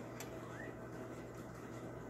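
Faint mouth sounds of someone chewing raw corn starch: a couple of soft clicks near the start and a short faint squeak, over a steady low background hum.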